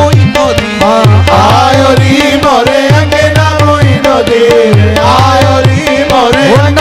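Qawwali music: a harmonium holding and moving its melody over a steady tabla rhythm, the tabla's low strokes sounding several times a second.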